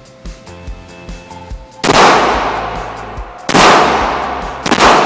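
Three handgun shots, fired a second or more apart starting about two seconds in, each loud crack followed by a long echoing tail off the walls of an indoor range. Before the first shot there is only background music with a steady beat.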